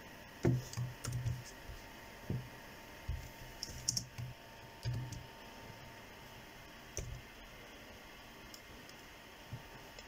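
Keystrokes and clicks on a laptop keyboard, irregular and in short clusters over the first seven seconds, then stopping.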